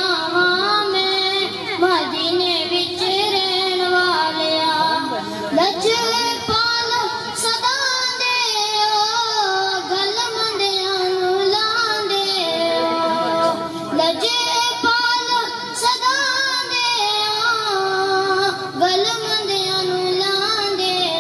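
A boy singing a naat, a devotional song in praise of the Prophet, in Punjabi: one unaccompanied-sounding voice through a microphone, carrying long, wavering melodic lines with no break.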